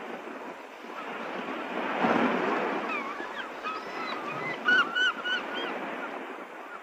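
Ocean surf washing in as a steady rushing noise that swells about two seconds in, with birds calling in short gliding cries over it, several of them clustered near the middle and later part.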